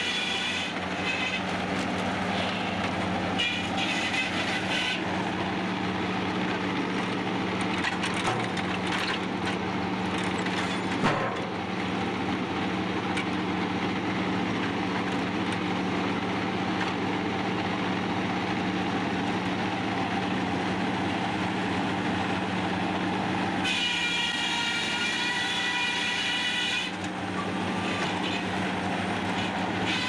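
Circular sawmill running: a steady machine hum from the saw and the log carriage on its rails, with a high whine that comes in at the start, again around four seconds in and again a few seconds before the end. A single sharp knock about eleven seconds in.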